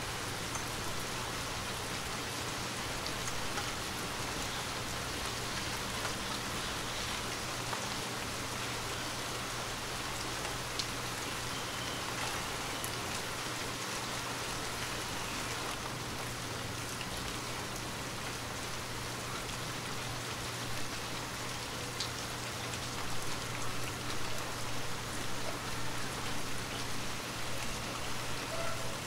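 Moderate rain falling on tree leaves: a steady hiss with scattered individual drop ticks, becoming slightly more uneven in the last few seconds.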